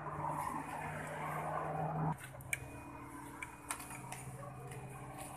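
Sharp clicks and taps of metal and plastic parts being handled while a brush cutter engine is taken apart. A steady hum underneath cuts off abruptly about two seconds in.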